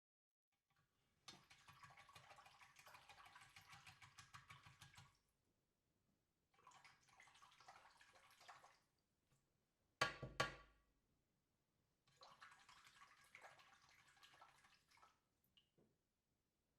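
Water sound effects: three separate stretches of dripping, trickling water, each a few seconds long with short silences between. About ten seconds in come two sharp, loud plops in quick succession.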